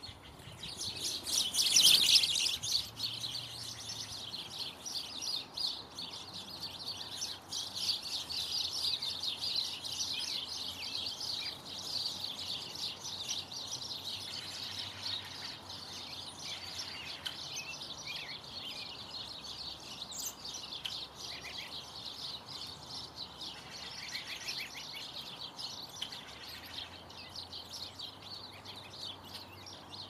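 Many small birds chirping and twittering together in a dense, rapid high chorus, loudest in a burst about two seconds in.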